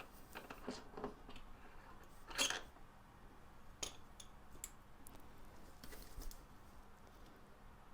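Faint clicks and knocks of tools and metal parts being handled while a motorcycle's front wheel is taken off, with one louder brief scrape about two and a half seconds in.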